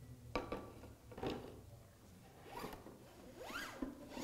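Aluminium-framed glass panels being slid and pressed into the slots of a metal panel holder: a couple of light knocks in the first second or so, then two short scraping slides near the end that rise and fall in pitch.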